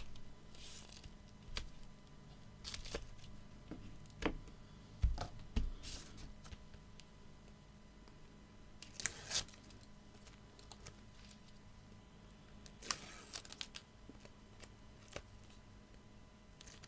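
Double-sided foam tape being torn and peeled from its backing while paper card is handled: short, intermittent scratchy tearing and crinkling sounds with a few light taps, the longest about nine and thirteen seconds in.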